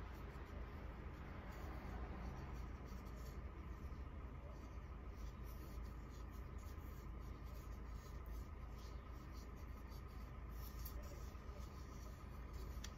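Faint, irregular scratchy rubbing as hands turn and handle a carved coconut shell, over a steady low hum.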